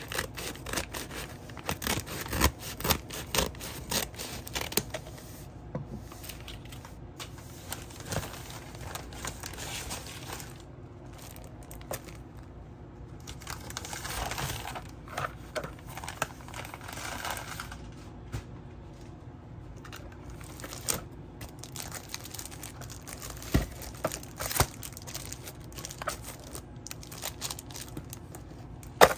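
Packaging being handled and unwrapped: plastic wrap and paper rustling and crinkling, with many sharp taps and clicks. About halfway through there is a longer stretch of steady rustling.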